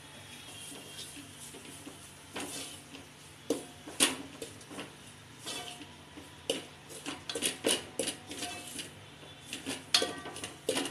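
Utensils knocking and scraping on an aluminium cooking pot as grated coconut is tipped in and stirred with a spatula: a run of uneven clatters and scrapes, some with a short metallic ring, starting about two seconds in and loudest about four seconds in and again near the end.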